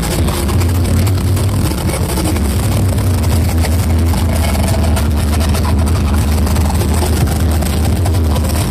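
Huge carnival sound systems blasting together at full volume: a steady deep bass drone over a dense distorted wash, overloading the microphone.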